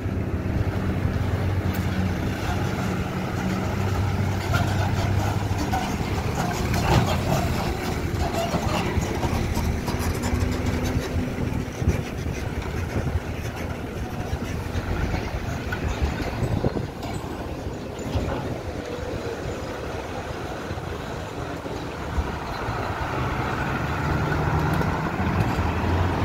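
Diesel engines of a truck and buses running as they drive slowly off a ferry across a steel ramp, a steady low engine hum that swells near the start and again near the end. A few short knocks sound in between.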